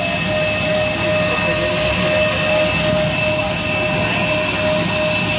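Steady aircraft jet turbine whine over a constant rushing noise, with several high, unchanging tones.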